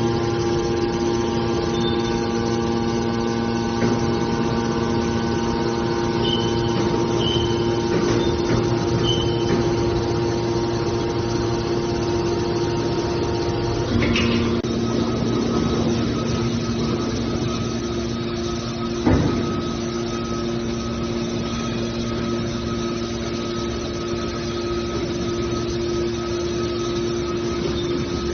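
Hydraulic mobile scrap car baler's power unit running with a steady hum. About halfway through the hum changes as some of its tones drop out and others come in, with a short clunk then and another a few seconds later.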